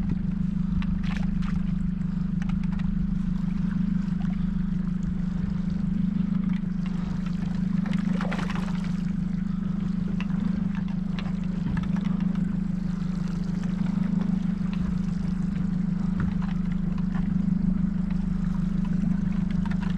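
Outboard motor running steadily with a constant low hum, with water trickling and splashing against the boat's hull.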